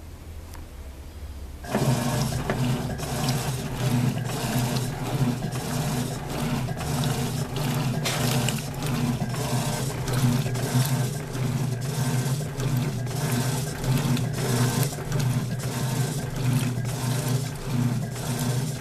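Electrolux top-loading washing machine kicking into agitation about two seconds in: a steady motor hum with water and clothes sloshing irregularly in the drum.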